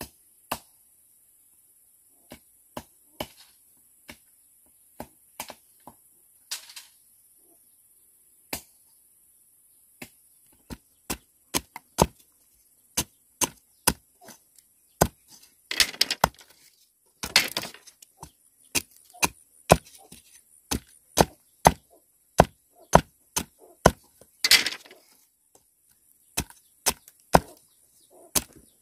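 Broad-bladed chopping knife striking bamboo strips against a wooden log chopping block. The chops are sharp and spaced out at first, then come quicker, about one to two a second, with a few longer, noisier strokes among them.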